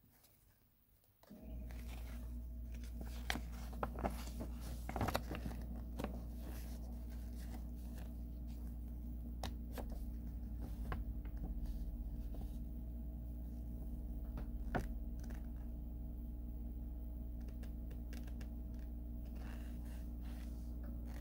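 3.6 V cordless mini electric screwdriver's small motor switched on about a second in and running steadily. Clicks and knocks of handling sit on top, most of them a few seconds in and one near the middle.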